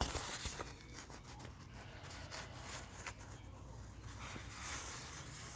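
Faint rustling and handling of a paper store flyer, with a few light clicks.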